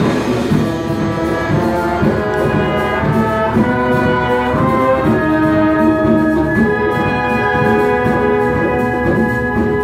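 Symphony orchestra playing live, with brass and strings. Short moving notes give way to long held chords about halfway through, over a steady rhythmic low end.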